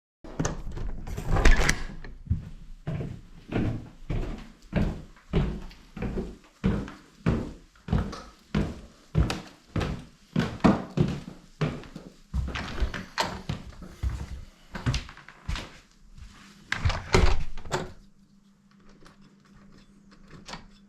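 A steady series of short thuds, about three every two seconds, which stops near the end, leaving a faint steady hum.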